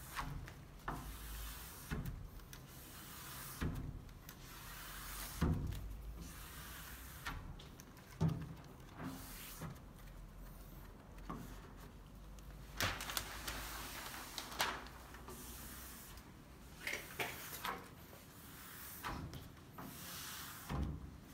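Small plastic squeegee scraping and rubbing over smart film on glass in short, irregular strokes, with occasional sharp ticks, as the film is pressed flat and bubbles are worked out.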